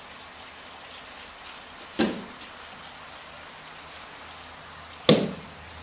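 Two sharp slaps of a body and hand hitting a martial-arts mat, about three seconds apart, as an aikido partner is taken down and pinned face-down. A steady hiss runs underneath.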